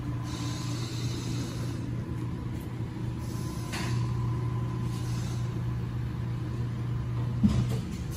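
Steady low mechanical hum of garage machinery, with a few brief hisses and one short sharp knock near the end.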